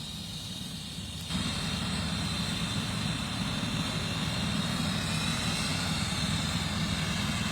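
Steady vehicle engine rumble with a noise haze over it, which gets louder a little over a second in.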